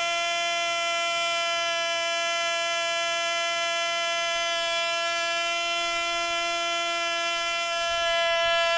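MP Jet .061 model engine, being broken in, running steadily at full speed on a test stand with its propeller, a high-pitched buzzing whine at about 20,500 rpm. It gets slightly louder near the end as a gloved hand reaches over the engine.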